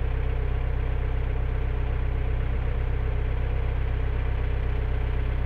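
Narrowboat's inboard diesel engine running steadily while the boat is under way, an even low-pitched chug with no change in speed.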